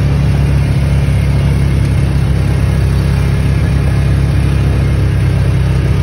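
Side-by-side UTV's engine running steadily while driving, a constant low drone heard from inside the cab.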